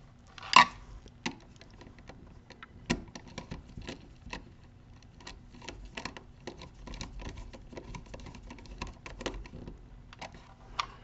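Irregular small clicks, taps and scrapes of a screwdriver working the screws of a screw-terminal block while wires are pushed in and handled, with one sharper click about half a second in.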